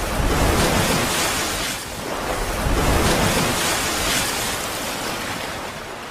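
Rushing, surf-like water whoosh sound effect: a dense noise that swells twice and fades toward the end.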